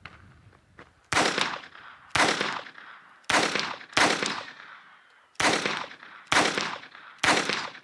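Phoenix Arms HP22A .22 LR pistol firing seven shots at roughly one a second, the spacing a little uneven, each crack trailing off in a short echo.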